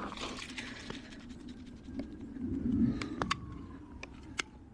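Footsteps on thin snow and leaf litter, with scattered light clicks and scrapes.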